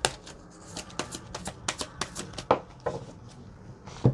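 A deck of tarot cards being shuffled by hand: a run of quick, irregular papery flicks and taps, with a firmer knock near the end.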